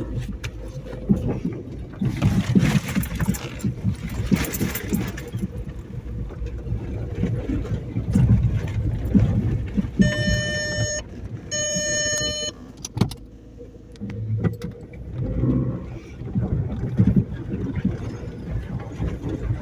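A car running with a steady low rumble, with rustling noise early on. Two electronic beeps, each about a second long, come about ten and twelve seconds in.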